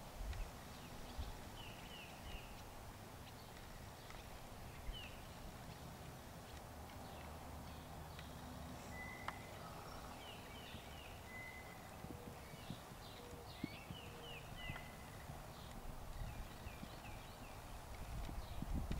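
Birds chirping, short calls repeated in small groups of two to four notes, over the faint hoofbeats of a horse moving on sand arena footing. The hoofbeats grow louder near the end.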